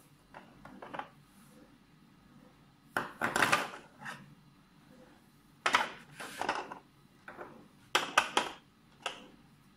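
Hard plastic clicks and clatter as the attachment heads of a Kemei KM-600 grooming kit are lifted out of and set into their plastic stand, in several short bursts of handling.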